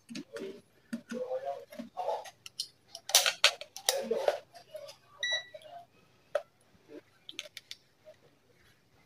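Scattered clicks and knocks of multimeter probes and hands working on the TV board, with one short high beep about five seconds in.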